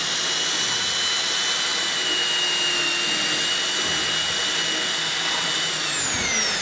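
Mixer drill driving a hole saw through a solid wood door: a steady, loud motor whine that dips a little under load midway and falls in pitch near the end as the motor slows.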